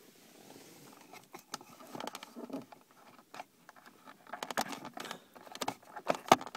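Small scrapes and clicks of a 3.5mm stereo jack plug being worked into an aux socket in the car's console compartment, with a run of sharper clicks from about four and a half seconds in.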